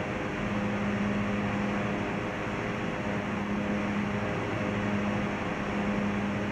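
Cessna 172's piston engine and propeller running at steady cruise power, an even drone heard inside the cockpit with a steady low hum.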